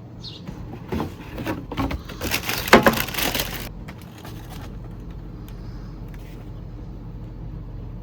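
A few seconds of rustling and clicking handling noises, loudest about two and a half seconds in, then a steady low hum.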